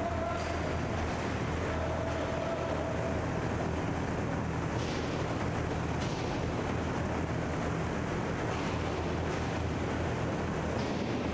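Indoor inline hockey rink ambience: a steady low hum and rushing noise, with a few faint knocks of sticks and puck from play at the far end.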